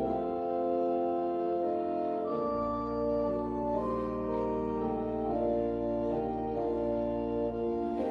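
Church pipe organ playing slow, sustained chords as the closing music of the service. The deep pedal bass drops out just after the start and comes back in about two and a half seconds in.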